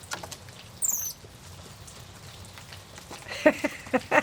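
Steady rain falling, with one short, high-pitched squeak that falls in pitch about a second in, a capuchin monkey's call.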